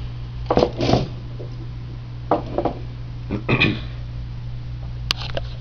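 Knocks and rattles from a partly built Prusa Mendel 3D printer frame being handled and tipped up, in three short bursts, then a single sharp click near the end, over a steady low hum.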